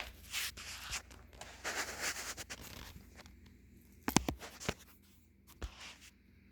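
Rustling and scraping handling noises, with a cluster of sharp clicks about four seconds in.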